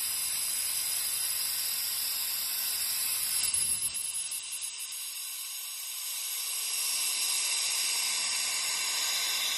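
Air hissing in through the vacuum-release valve of a 150-litre vacuum mixing reactor as the vacuum in the vessel is let out. A steady high hiss that turns unsteady for a moment about four seconds in, then carries on.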